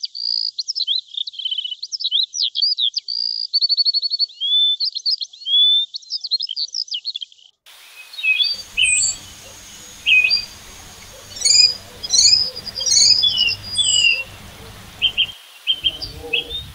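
Songbirds singing: a rapid, varied run of chirps, trills and whistles for the first seven or so seconds, thin and with no low sound under it. Then the sound changes to scattered sharp bird chirps over a low steady rumble.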